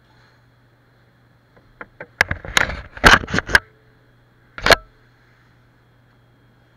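Handling noise right at the microphone: a nylon backpack and its straps brushing and knocking against the helmet camera in a quick run of rustles and thumps, then one more knock about a second later. A faint steady low hum sits underneath.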